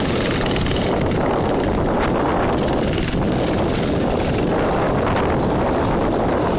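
Racing lawn mowers' small engines running loud and steady around the dirt track, a dense unbroken engine noise.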